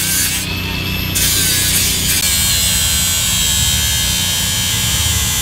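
Power tool running with a steady electric buzz.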